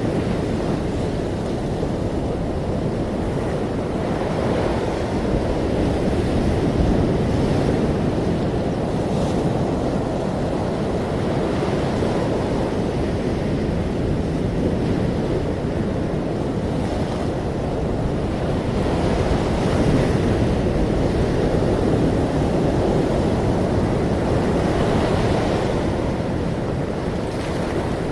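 Ocean waves washing in continuously, with a low, steady rumble of surf that swells gently every few seconds.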